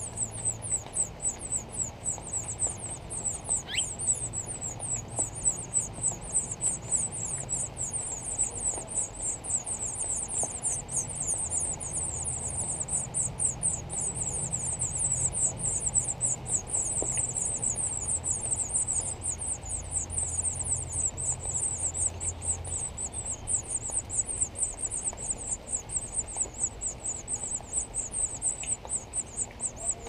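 Nestlings begging in the nest as the parent feeds them: a continuous, high-pitched chorus of rapid, thin cheeping that pulses in loudness.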